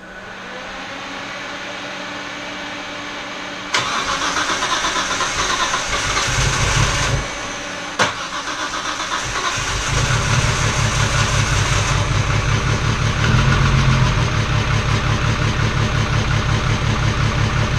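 Nissan R32 Skyline GT-R's RB26DETT twin-turbo straight-six being started: a steady whine at first, a sudden jump in sound about four seconds in, a sharp click near eight seconds, then the engine running with a low, uneven pulse. It is still misfiring, lugging almost.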